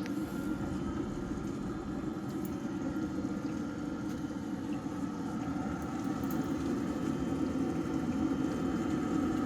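Small pump running steadily with water circulating and churning, slowly growing louder.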